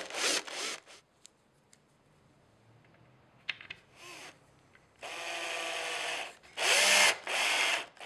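Power drill running in short bursts. The first burst is the end of drilling a pilot hole into a wooden panel. After a pause with a few light clicks, further bursts follow from about five seconds in as the drill drives a wood screw through a lime-green plastic ButtonFix button into the panel; one burst spins up and then down.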